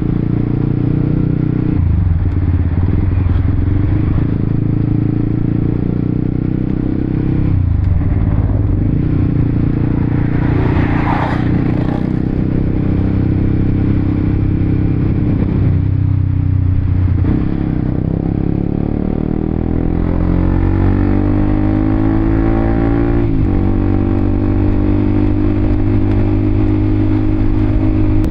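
Honda CBR250RR motorcycle's parallel-twin engine heard on board while riding: the pitch drops at several gear changes, then climbs steadily under acceleration for about six seconds before a shift drops it again near the end. A short hiss rises and fades about eleven seconds in.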